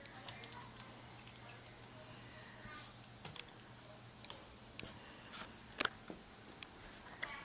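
Scattered small clicks and taps of a small screwdriver and tiny screws being worked into the metal bracket of a laptop screen, the loudest click about six seconds in.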